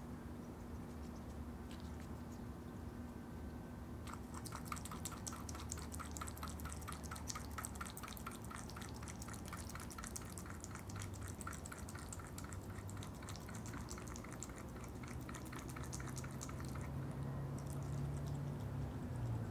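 Opossum lapping yogurt: a rapid, even run of wet tongue clicks that starts about four seconds in and stops near the end.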